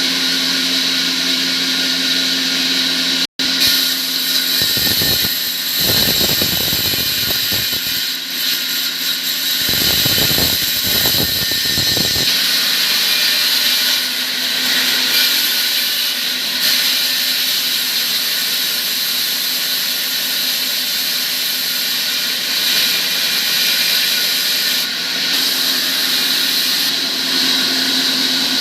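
An electric motor-driven tool or machine running steadily with a high whine. It drops out for an instant about three seconds in, and a rougher, lower noise comes and goes between about five and twelve seconds in.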